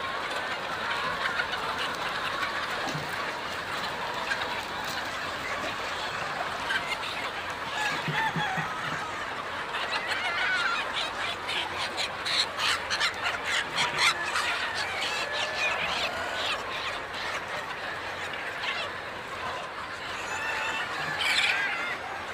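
Chickens clucking and calling, with a quick run of short sharp clucks about halfway through.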